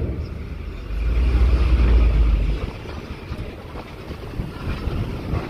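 Tour bus engines running as the buses drive onto the ferry. A heavy low rumble swells about a second in and eases off after about a second and a half, with wind buffeting the microphone.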